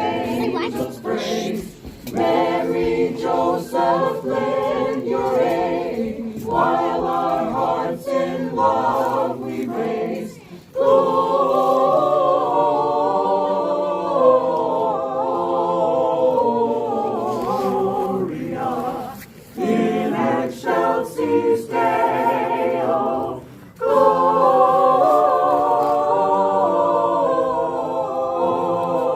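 Choir singing a Christmas carol in several-part harmony with no clear instrumental backing, pausing briefly between phrases three times.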